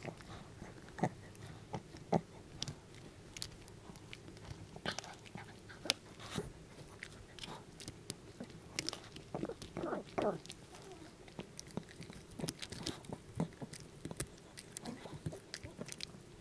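Small dog crunching and gnawing a duck neck bone treat: irregular sharp cracks and crunches of bone between its teeth, picked up close to the microphone.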